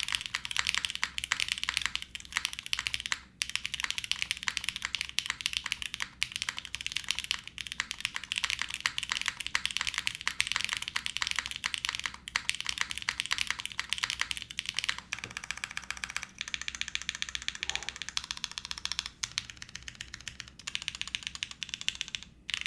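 Typing on a Cat:( custom mechanical keyboard with H1 linear switches in an O-ring-mounted aluminium plate and GMK keycaps. It is a fast, continuous stream of keystrokes, briefly pausing about three seconds in and just before the end.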